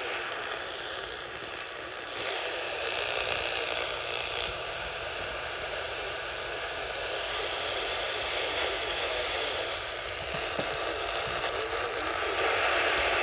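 Radio static: a steady hiss from a receiver picking up no clear signal, getting a little louder about two seconds in and again near the end.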